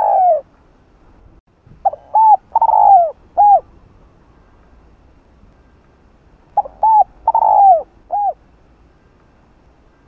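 Spotted dove cooing: the tail of one phrase at the very start, then two full phrases about five seconds apart. Each phrase is two short coos, a longer falling coo and a short final coo.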